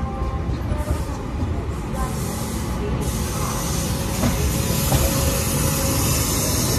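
Passenger train running on the rails, heard from the coach doorway: a steady low rumble of wheels on track with a rushing wind hiss that grows louder about two to three seconds in.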